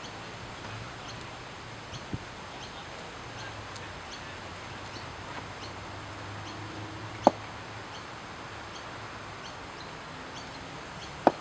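A few sharp knocks of a cricket ball against a bat, a small one about two seconds in and two loud ones about four seconds apart, the last near the end. Faint bird chirps over a steady outdoor background.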